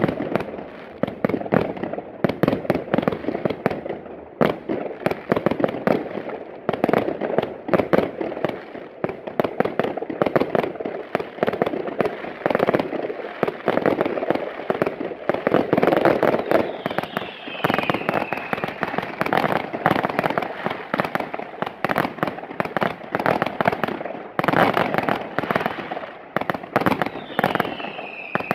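Fireworks display of multi-shot firework batteries: a rapid, unbroken string of launch shots, bursts and crackling. Two falling whistles come through, one about two-thirds of the way in and one near the end.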